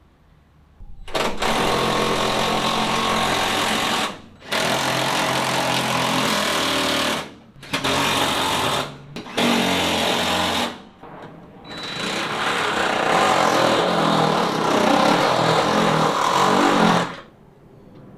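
A hand-held power tool runs in five bursts, the first four about one to three seconds each and the last about five seconds, building up louder toward the end.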